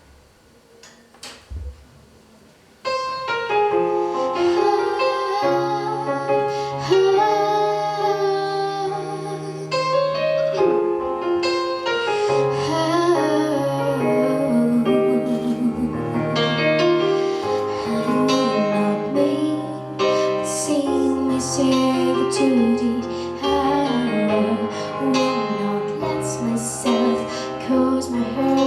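A few faint clicks, then about three seconds in a slow piano ballad backing track starts, with a female voice singing over it.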